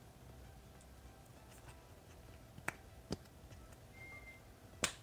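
A few short, sharp clicks and taps from handling a small metal tabletop tripod and plastic accessories: two about half a second apart a little past halfway, and a louder one near the end.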